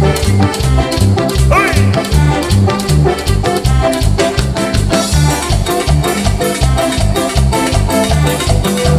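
Live cumbia band playing the instrumental intro to a song, loud through the stage PA. Saxophone, congas, electric guitars, bass and keyboard play over a steady, danceable bass-and-percussion beat.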